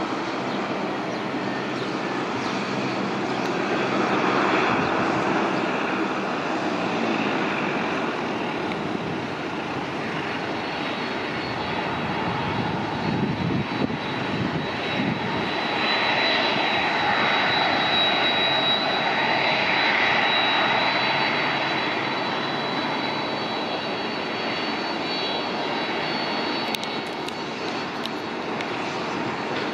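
Jet engines of a Boeing 767-200 freighter running at low power as it slows and taxis off the runway after a rejected takeoff: a steady jet rumble, with a high fan whine joining about halfway through.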